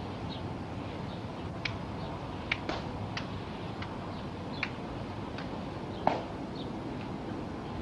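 Footsteps of ceremonial Army guards in metal-tapped dress shoes, clicking sharply and unevenly on a stone plaza over a steady outdoor hiss. The loudest click comes about six seconds in.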